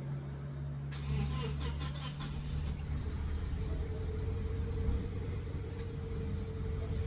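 A motor vehicle's engine running steadily. A rattling clatter comes in about a second in and lasts under two seconds, and the engine's note changes about three seconds in.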